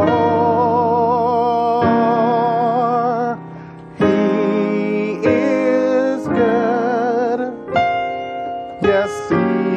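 Gospel piano playing rich altered extended chords, such as C9♯11 and B♭13/D, with a new chord struck every second or two. Over it, a man's voice sings the melody with a wide vibrato.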